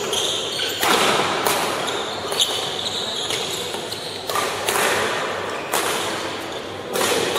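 Badminton rally: rackets striking the shuttlecock in a run of about eight sharp hits, roughly one every half second to second, each echoing in a large hall. Short high squeaks from court shoes on the floor come in between the hits.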